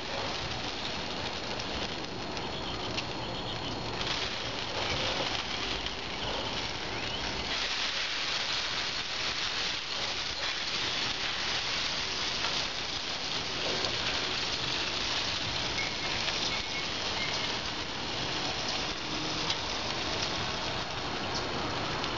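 Chicken wings sizzling and crackling on the hot grate of a charcoal-and-wood smoker, a steady hiss with many small pops and occasional light clicks.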